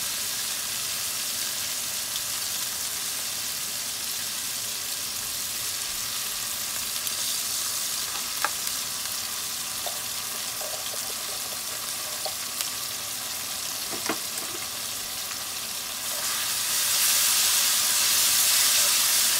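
Minced garlic sizzling in hot oil in a pan, a steady high crackling hiss with a couple of sharp clicks. The sizzle grows louder near the end as the garlic is stirred with a wooden spoon.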